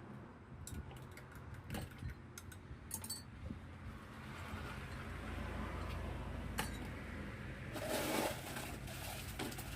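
Scattered light clinks and knocks of cups, utensils and containers being handled while drinks are made, over a low steady rumble. A denser rattling rush comes about eight seconds in.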